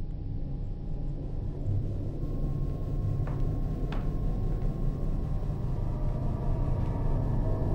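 Low steady rumbling drone, with a faint high tone entering about two seconds in and two short clicks around three and four seconds in.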